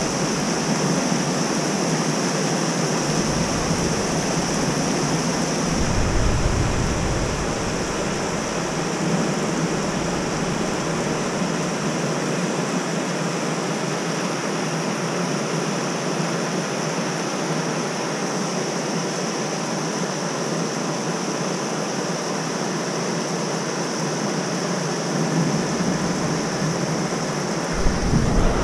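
Steady hiss of heavy rain mixed with the rush of a river and waterfall during a thunderstorm. Wind buffets the microphone briefly a few seconds in and again near the end.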